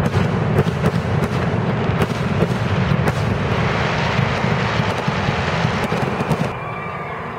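Grucci aerial fireworks display going off in rapid succession: a continuous rumble of booms laced with many sharp cracks. It cuts off suddenly about six and a half seconds in, leaving a much quieter background.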